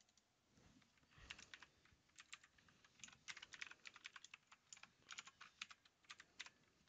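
Faint typing on a computer keyboard: irregular keystrokes, some in quick runs, starting about a second in.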